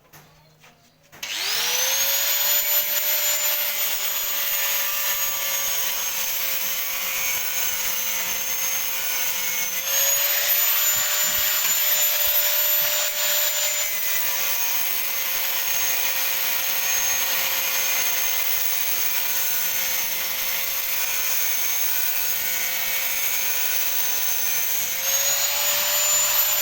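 Electric angle grinder spinning up about a second in and cutting the sheet metal of a car's rear door: a steady high whine whose pitch sags slightly under load and rises back as the disc runs free, around ten seconds in and again near the end.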